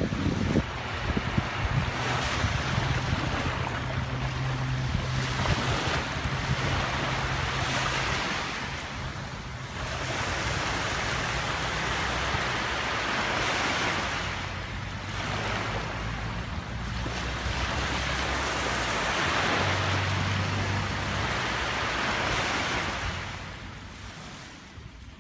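Small sea waves washing up onto a sandy beach, the surf noise swelling and easing in slow surges every few seconds.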